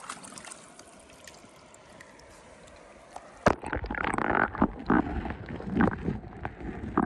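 Faint river water at first. About three and a half seconds in, a sharp knock as the camera goes under the surface, then muffled underwater gurgling and bubbling with irregular knocks, heard through the submerged camera.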